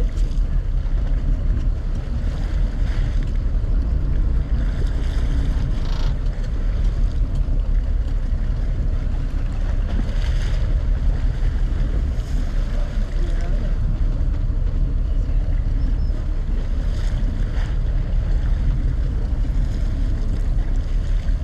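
Steady low rumble of a sport-fishing boat at sea, with wind buffeting the microphone and water noise, plus a few brief louder gusts or splashes.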